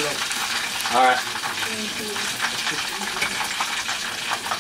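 Hot cooking oil sizzling steadily in a frying pan, with many small crackles, after breaded chicken has been fried in it.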